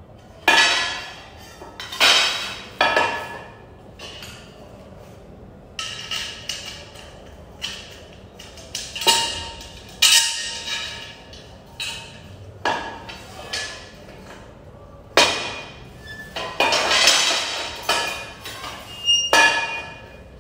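Metal tubes and fittings of a clothes stand clinking and knocking as they are handled and fitted together. About a dozen sharp, ringing knocks come at uneven intervals, with a quick cluster of them near the end.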